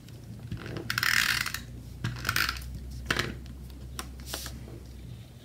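Snail adhesive tape runner rolled across paper in several short strokes, the longest about a second in, laying down adhesive.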